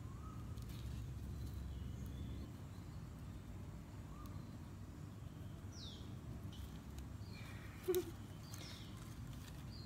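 Quiet outdoor garden ambience with a steady low rumble and a few faint bird chirps, then a single short cat mew about eight seconds in.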